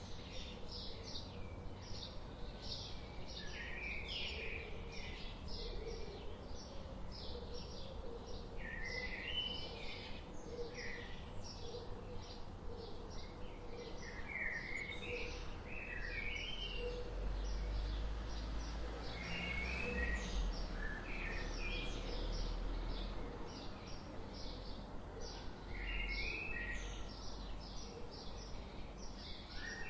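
Several small songbirds chirping and singing: a steady stream of short, high chirps repeated quickly, with warbled song phrases every few seconds, over a low background rumble that swells in the middle.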